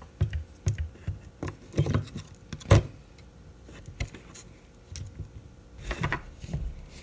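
An RC crawler's transmission being handled and pressed into its plastic chassis: irregular clicks, taps and knocks of hard parts against each other, the loudest knock about three seconds in.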